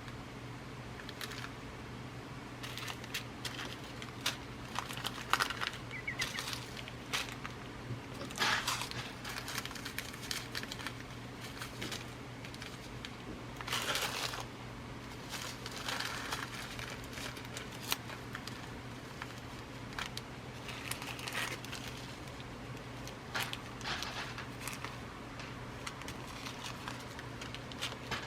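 Packets of glass seed beads being handled and rummaged through, rustling and crinkling in irregular bursts over a steady low hum.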